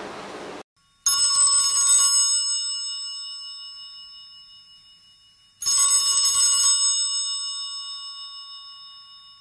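Telephone ringing: two rings about four and a half seconds apart, each about a second long and dying away slowly, for a call that has just been dialled and is not yet answered.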